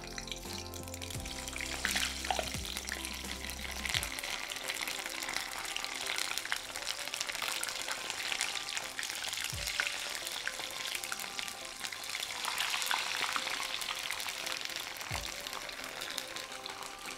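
Slit green bhaja chillies deep-frying in hot oil in a steel pot: a steady crackling sizzle full of small pops.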